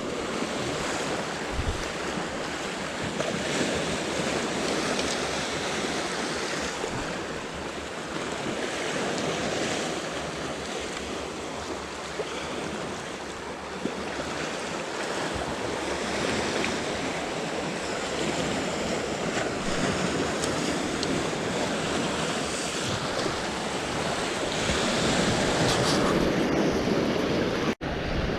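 Sea waves washing in, with wind blowing on the microphone; the sound drops out for an instant near the end.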